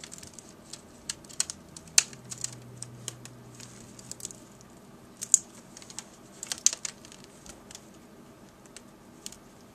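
Irregular small clicks and taps of hands handling a laptop screen and its display cable while the cable is being plugged back into its connector, a few sharper clicks standing out about 2, 5 and 7 seconds in.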